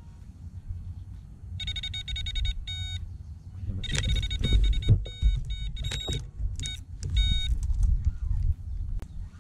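Electronic carp bite alarm signalling a run: a rapid string of high beeps starts about one and a half seconds in, breaks off, then resumes in stuttering bursts as a carp pulls line from the rod. Knocks and handling noise come as the rod is lifted from its rest.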